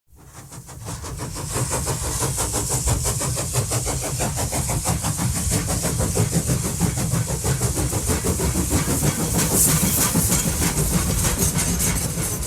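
A train running, fading in from silence over the first second or so, then going on steadily with rapid, close-spaced beats and a hiss.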